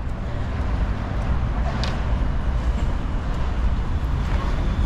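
Pesa Swing low-floor tram running close alongside at a stop, a steady low rumble under city street noise, with a short click about two seconds in.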